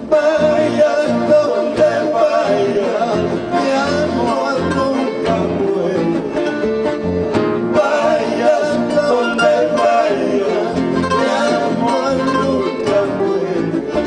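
Acoustic guitars and an accordion playing a song together, with a voice singing over them.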